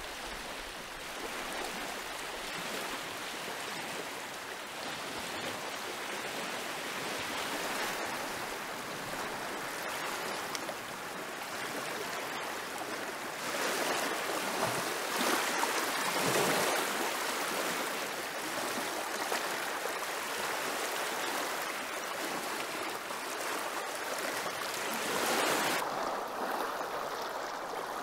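Small lake waves lapping and washing on a stony shore, a steady wash of water that swells louder for a few seconds in the middle and again near the end.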